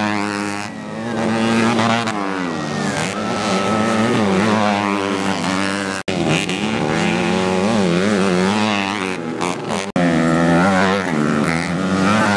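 Modified 125cc four-stroke underbone motorcycle engines racing on a dirt track, several revving at once and rising and falling in pitch as the riders accelerate and back off. The sound cuts off abruptly about six and again about ten seconds in, then resumes.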